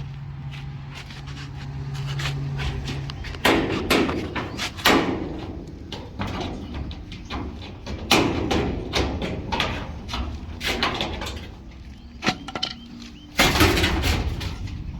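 Irregular metal knocks and bangs from work on a steel grain bin's bolted wall panel, several sharp and loud, with a low steady hum for the first three seconds.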